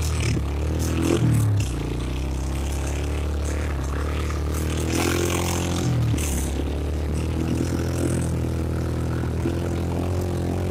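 ATV engine running steadily, revved briefly about a second in and again around five to six seconds, with rattling and scraping now and then.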